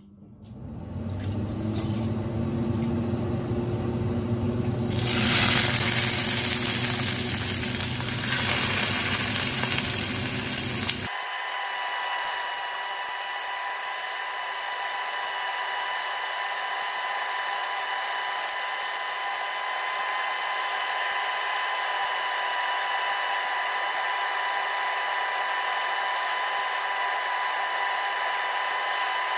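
Steaks sizzling in a hot stainless-steel frying pan over a steady mechanical hum that builds up over the first couple of seconds. The sizzle grows louder about five seconds in. About eleven seconds in the sound changes abruptly to a thinner sizzle with a steady high whine.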